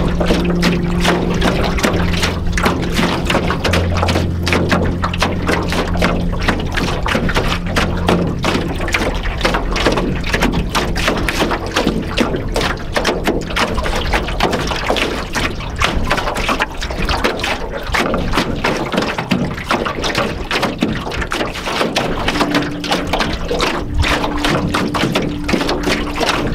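Small choppy waves lapping and slapping continuously against the hull of an aluminium canoe. A soft, sustained ambient music pad sits underneath through the first third and again near the end.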